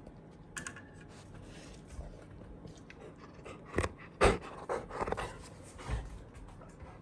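Golden retriever panting, with several sharp knocks and thumps, the loudest two close together about four seconds in.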